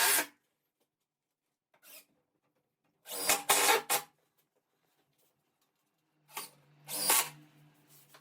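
Power drill-driver running in short bursts, driving screws to fix timber door stop strips to the frame: a brief whirr near two seconds in, about a second's run at three seconds, and a longer run of over a second near the end.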